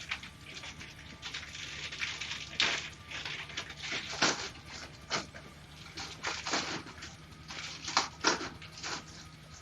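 Irregular rustling and scraping from hands handling the parts of a cat exercise wheel, a string of short strokes with a few louder scrapes, over a faint steady hum.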